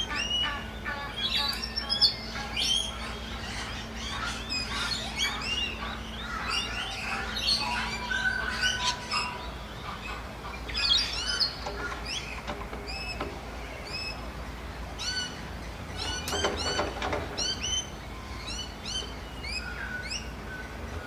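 Wild birds calling: many quick, rising-and-falling chirps overlapping throughout, with a harsher squawking call about sixteen seconds in.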